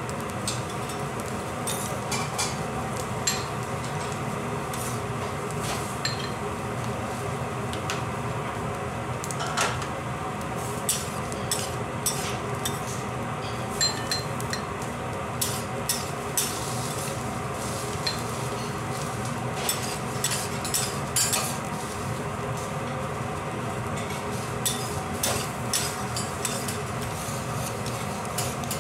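Metal spatula scraping and clinking on a steel teppanyaki griddle while gathering fried rice and scooping it into a bowl. Many short sharp clinks are scattered over a steady low hum.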